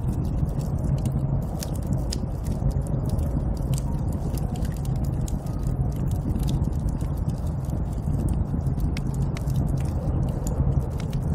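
Snowstorm wind blowing as a steady low rumble, with irregular sharp crackles scattered throughout.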